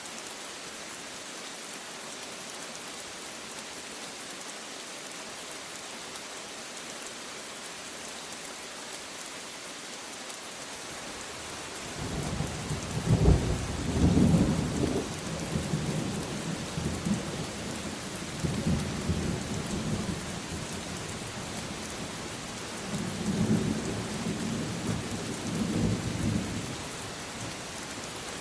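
Steady rain hissing, with thunder rumbling in from about twelve seconds in: a loud peak soon after, then a second swell of rumbling near the end.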